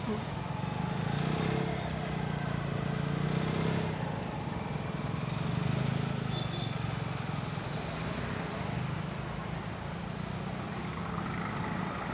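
Steady low rumble of a motor vehicle engine or road traffic, swelling and easing a little at times.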